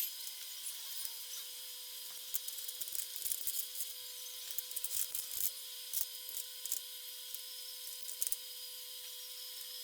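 Light clicks and taps from handling tools and parts at a workbench, in irregular clusters through the middle, over a steady high hiss and a faint hum.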